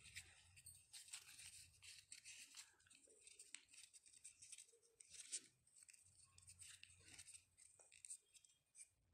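Faint crinkling and rustling of origami paper being folded and creased by hand, in short irregular crackles.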